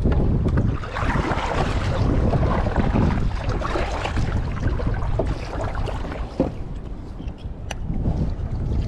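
Strong wind buffeting the microphone, with a kayak paddle dipping and splashing through choppy lake water.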